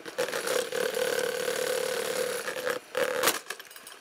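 Sunbeam Retro Mixmaster MX6800 stand mixer's 350-watt electric motor running with a steady whine as the beaters spin. The whine drops out briefly near three seconds in, returns, and then stops just after a sharp knock.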